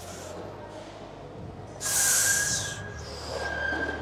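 A lifter's hard, hissing exhale through the mouth, straining through a rep on a seated leg curl machine, about halfway through, with a softer breath near the end. Steady gym room noise and a faint high whine run underneath.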